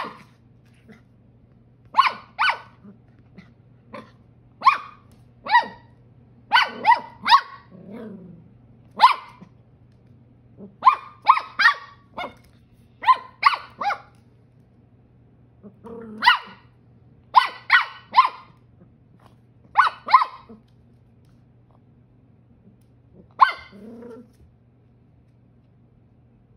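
Ten-week-old miniature schnauzer puppy barking in short, high-pitched barks, mostly in twos and threes, with a low growl now and then. It is the wary barking of a puppy unsure of a new toy. The barking stops a few seconds before the end.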